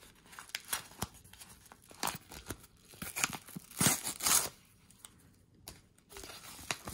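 Kraft-paper mailing envelope being torn open by hand: scattered paper rustles and short tears, the loudest tearing about four seconds in as a strip comes off its edge.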